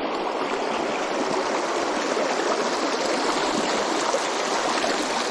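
Shallow stream running over rocks and stones: a steady rush of flowing water.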